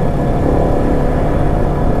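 Yamaha Exciter 155 VVA's single-cylinder four-stroke engine running steadily at a light cruise of about 44 km/h, heard from the rider's seat. It carries the mechanical noise that the owner holds to be normal for this engine.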